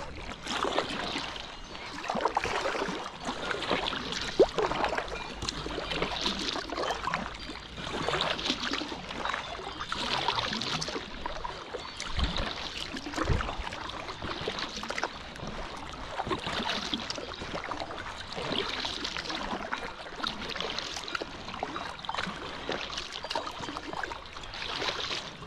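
Paddle strokes from an inflatable packraft on a lake: the blade swishes and splashes through the water in a steady rhythm, about one stroke every two seconds.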